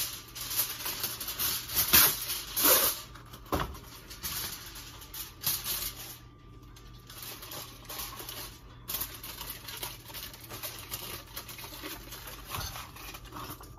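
Heavy-duty aluminum foil being pulled from its box, torn off and crinkled as it is handled and folded. The sharpest crackles come in the first four seconds, with quieter rustling after.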